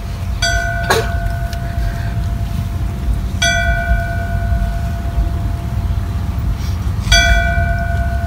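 A bell struck three times, about three and a half seconds apart, each strike ringing on in a long, clear tone. It is a tolled bell for a firefighter's final alarm.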